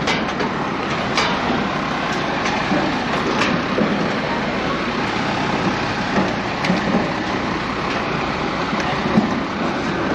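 Steady mechanical rumble and rushing air noise, with faint background chatter and a few light clicks.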